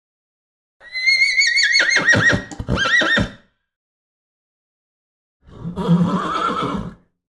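A horse whinnying: one long, high, wavering neigh that starts about a second in and breaks into quick pulses toward its end. After a gap, a shorter, lower, rougher call comes near the end.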